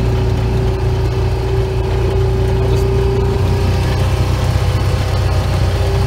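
Honda side-by-side (UTV) engine running steadily as the vehicle drives along a dirt farm track, heard from the driver's seat. The engine note shifts slightly about three and a half seconds in.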